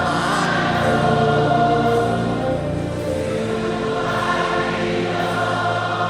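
A congregation singing a gospel worship song together, many voices holding long notes over steady instrumental backing.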